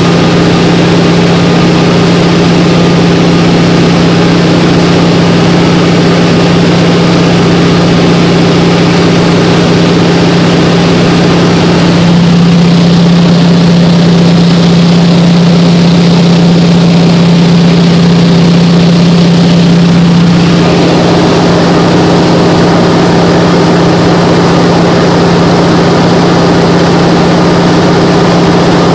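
Seaplane's piston engine and propeller, a loud steady drone heard from inside the cabin in cruise flight. From about twelve seconds in the hum sits slightly deeper and fuller, and at about twenty seconds it switches back abruptly.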